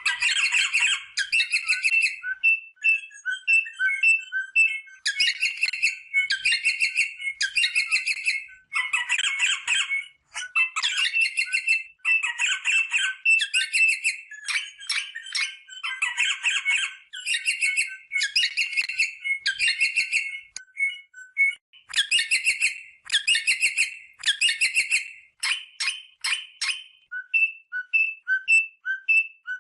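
Rosella parrots calling: bursts of harsh chattering calls, each about half a second to a second long, repeated with short clear whistled notes between them.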